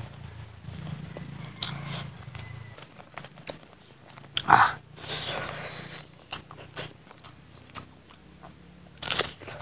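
Close-miked eating of rice and chicken curry by hand: chewing and lip smacks with many small wet clicks, and one louder mouth sound about halfway through.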